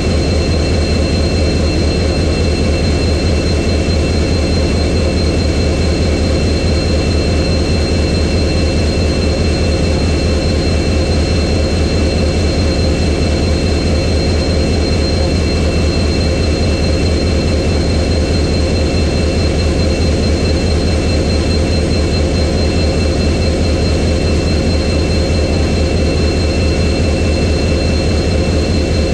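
EMD WDP-4B diesel-electric locomotive's 16-cylinder two-stroke engine idling with a steady, deep hum. Two thin, constant high-pitched whines sit over it, and nothing changes.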